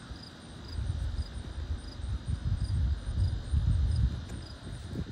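Insects chirping: a constant high trill with a short, higher chirp about every two-thirds of a second. Under it is a low rumble of wind on the microphone, strongest in the middle.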